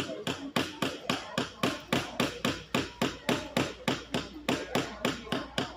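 Small hammer driving nails into a wooden planter-box kit: quick, even strikes about four a second that stop near the end.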